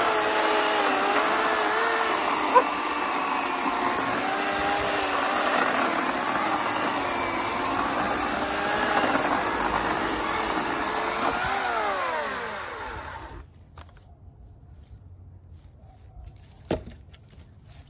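Homelite 14-inch 9-amp corded electric chainsaw cutting through a fallen locust limb, its motor whine dipping and recovering as the chain bites into the wood. The motor winds down and stops about thirteen seconds in, followed a few seconds later by a single short knock.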